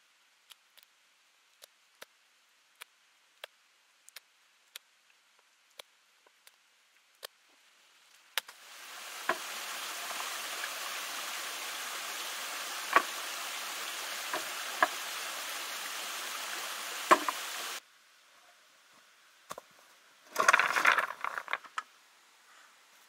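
Sharp clicks of stone knocking on stone, spaced a second or so apart. Then a stream's steady rush of water for about nine seconds, with a few louder stone knocks over it, cutting off suddenly. Near the end comes a brief scuffing rustle of dry leaves and stones.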